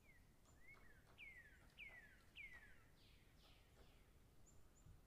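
Faint bird calling: a run of about five whistled notes, each falling in pitch, spaced a little over half a second apart, with a few short high chirps around them.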